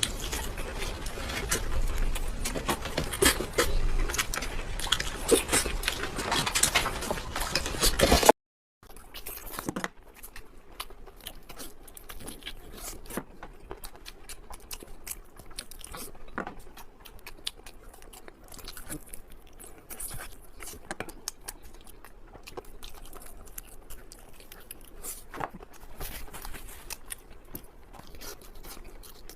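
A person chewing and biting food close to the microphone, dense and loud for about eight seconds, then a brief dropout to silence, after which the chewing is quieter and sparser.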